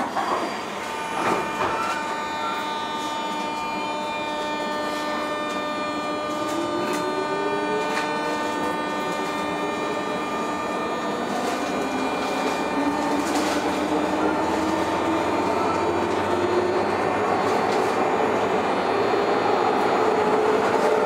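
JR 201 series electric train accelerating, heard from inside the car: a few clunks near the start, then the traction motor whine rising slowly in pitch and growing louder as the train gathers speed, over steady high tones.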